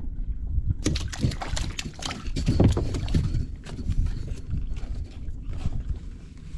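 Low wind rumble on the microphone, with a flurry of clicks, knocks and rustles from about a second in to three and a half seconds in as a rod and a small, just-landed fish are handled on a sit-on fishing kayak.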